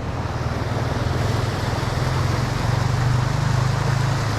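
Low, steady engine hum of a passing or idling motor vehicle, slowly growing louder, over an even rushing noise.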